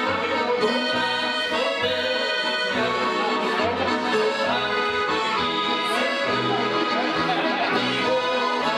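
Swiss accordion folk band playing a lively tune live: two accordions carry the melody over double bass notes falling about twice a second.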